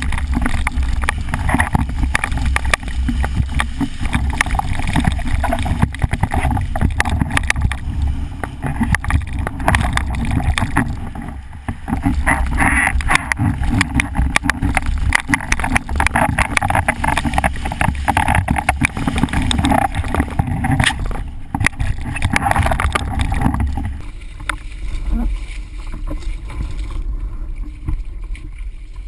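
Wind rushing over a boom-mounted action camera and spray hissing and slapping off a formula windsurf board planing fast on flat water. The rush drops away near the end as the board slows and reaches the shallows.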